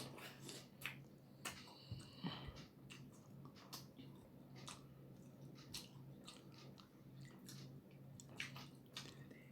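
A person chewing roti and tadka: soft, wet mouth clicks and smacks scattered irregularly, over a faint steady low hum.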